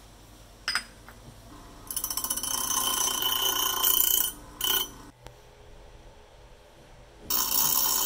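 A small metal knife spacer ground against a running abrasive wheel in several bursts, with the motor running steadily between them. There is a short touch about a second in, a long grinding pass from about two to four seconds, a brief one near five seconds and another near the end, each with a ringing metallic edge.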